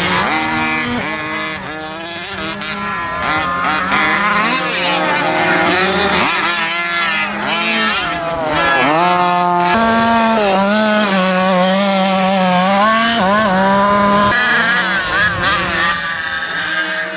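Small two-stroke gasoline engines of 1/5-scale RC race trucks and buggies revving up and down as they race, their pitch rising and falling repeatedly, with more than one engine heard at times.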